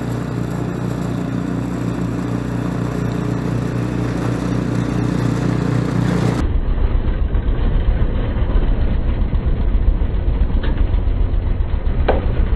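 Craftsman two-stage snowblower's single-cylinder engine running steadily under load as it throws snow. About six seconds in, the sound turns duller and becomes an uneven low rumble as the machine comes right up to the microphone with snow spraying over it.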